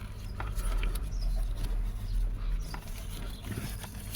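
Scattered light clicks and scratching from hands handling wiring and plastic connectors, over a steady low rumble.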